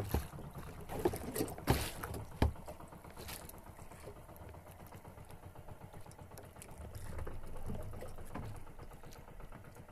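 Sea water washing and lapping against a small outrigger boat's hull, with a few sharp knocks in the first couple of seconds as the handline is hauled in.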